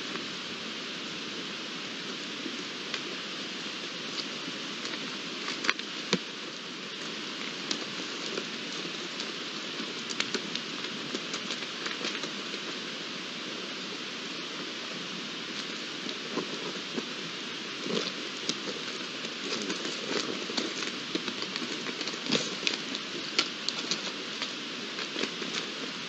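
Young red deer stags (spike-antlered 'varetos') sparring, their antlers clicking and knocking together in scattered sharp clacks that come more often in the second half, over a steady hiss.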